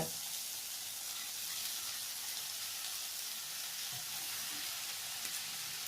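Chopped spinach and vegetables sizzling steadily in butter in a kadhai.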